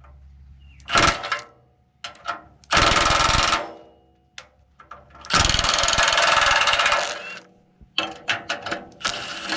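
Handheld power tool run in three bursts, about a second, a second and two seconds long, undoing the fasteners that hold a bracket on the car's front end, with a few light clicks and knocks near the end.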